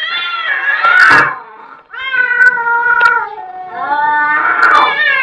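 Cats yowling in a fight standoff: three long, drawn-out, wavering yowls in a row, with a short sharp spit about a second in.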